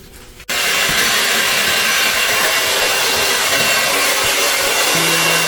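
Hair dryer switched on about half a second in and running steadily, blowing to melt ice built up inside a fridge.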